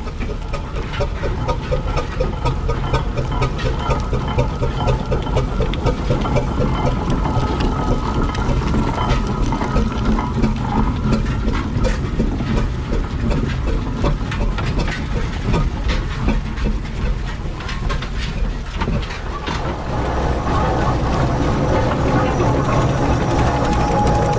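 Steam traction engines running, with steam hissing and the clatter of their motion. Near the end the sound grows a little louder and a steady tone comes in.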